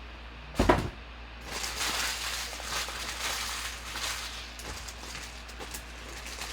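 A sharp thump on the table, then a trading-card pack's foil wrapper being torn open and crinkled, a continuous crackling rustle.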